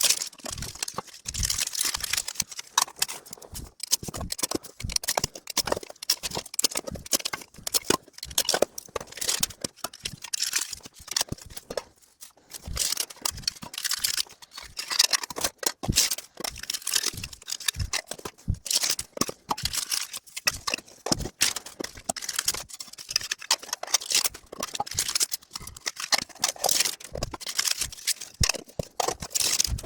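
Fast-forwarded handling of small metal collector tins and foil-wrapped trading-card booster packs: a quick, irregular run of clicks, clatters and crinkling.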